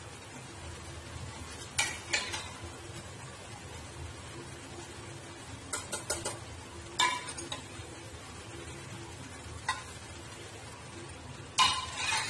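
Masala gravy sizzling steadily in a steel kadai on an induction cooktop, over a faint steady hum. Sharp metal clinks of steel utensils striking the pan come every few seconds, the loudest cluster near the end as boiled chana dal and potato are tipped in from a steel pressure cooker.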